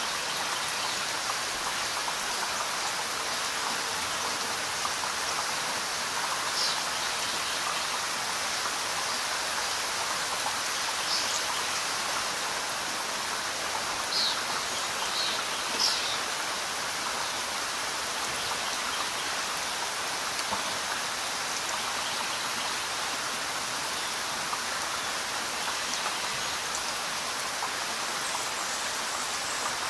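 Steady rain falling: an even hiss, with a few brief, sharper high ticks around the middle.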